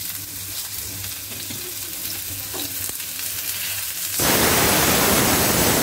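Sliced onion and potatoes sizzling as they fry in hot mustard oil. About four seconds in, the sizzle suddenly becomes much louder.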